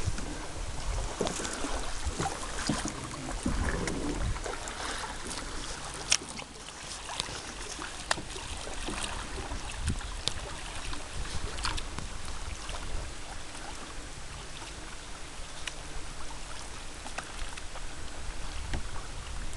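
Kayak paddle strokes in calm river water: the blade dipping, dripping and lapping, with scattered small splashes and clicks.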